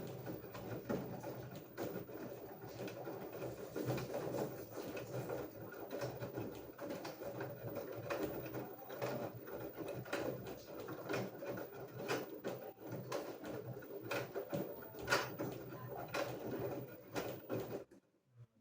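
LG front-loading washing machine mid-wash: the drum turning a load of clothes over a low motor hum, with frequent soft knocks and clicks. It stops abruptly near the end.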